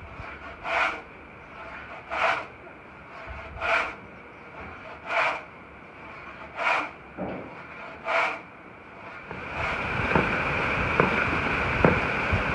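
Two-man pit saw rip-cutting a log lengthwise, six rasping strokes about one every second and a half. Then a steady rush of a mountain stream, louder, with a few sharp ticks.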